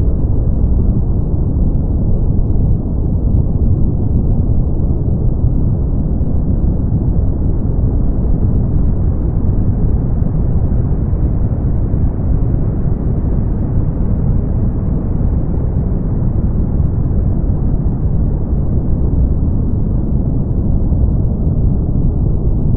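Brown noise: a steady, deep, rushing hiss, strongest in the bass and dull, with almost nothing high.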